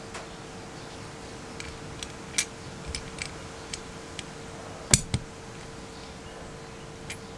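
Small metal clicks and taps as a steel clip is worked into place by hand inside a cast metal nightlatch case. There are scattered light clicks, with the sharpest pair just after halfway.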